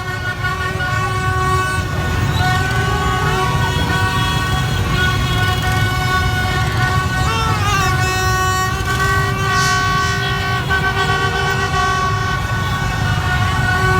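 Street-celebration din: several horns blaring in long held tones that overlap, a few briefly sliding in pitch, over the steady low rumble of many motorbike engines.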